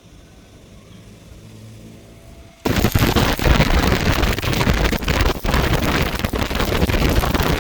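Low hum, then about two and a half seconds in a stick-welding arc strikes and runs on as a loud, steady crackle.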